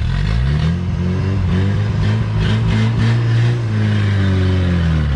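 Off-road 4x4's engine revving hard, its pitch rising and falling several times under throttle.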